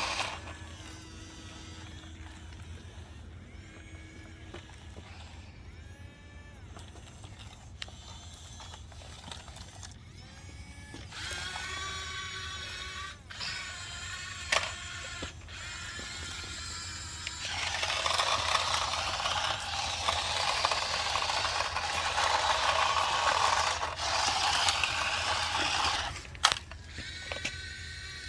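Mechanical whirring and clicking, like a small motor driving gears, over a steady low hum. It gets louder and noisier about two thirds of the way through, with a sharp click near the end.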